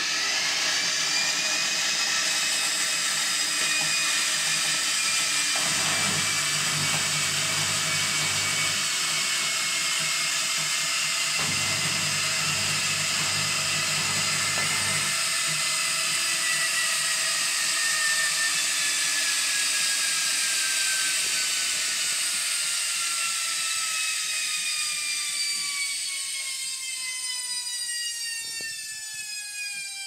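Hotpoint front-loading washing machine running its drum, giving a loud high-pitched whine that climbs at the start, holds, then falls slowly in pitch over the second half as the drum slows. A lower hum comes in twice, for a few seconds each.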